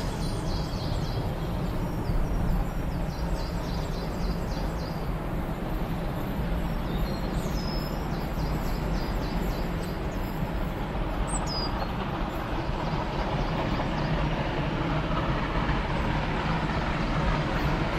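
Steam locomotive working a freight train: a steady rumble of exhaust and rolling wagons, with a few short high chirps over it.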